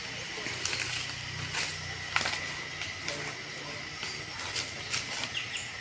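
Footsteps and rustling through undergrowth and dry leaves, with scattered short snaps, over a steady high tone and a low hum.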